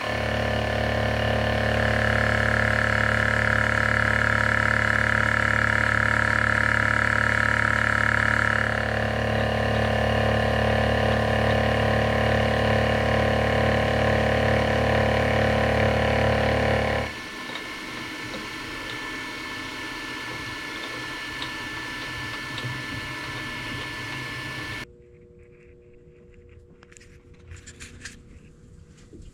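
A machine tool's motor starts and runs steadily with a constant hum, and a higher-pitched cutting sound is added for about six seconds early on. The motor shuts off abruptly a little past halfway, leaving a fainter hum that drops lower again near the end.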